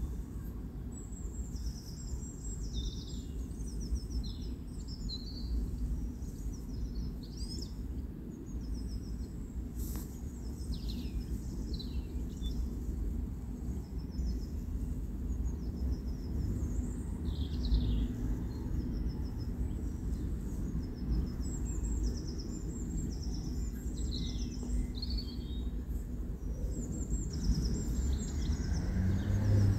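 Birds chirping and singing in short repeated phrases over a steady low background rumble.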